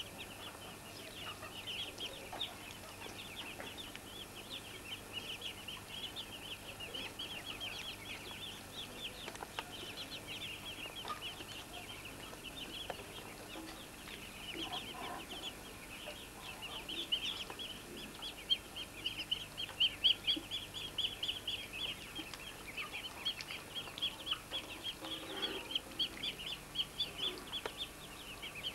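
A brood of Muscovy ducklings peeping: a dense, continuous chatter of short, high peeps that grows louder in the second half.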